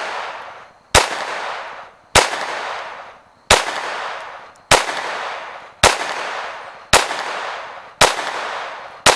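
Eight .22 LR shots, about one a second, from a Glock pistol fitted with an Advantage Arms .22 conversion kit, each sharp crack trailing off in a long echo. The pistol cycles every round without a stoppage, part of a full ten-round magazine ending with the slide locked open.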